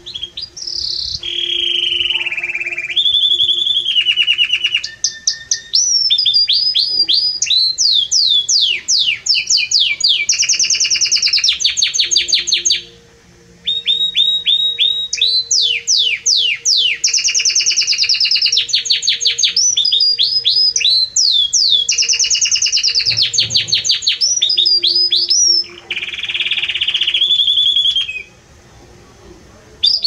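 Belgian canary singing a loud, continuous song of rapid trills and rolling repeated notes, breaking off briefly twice before starting again.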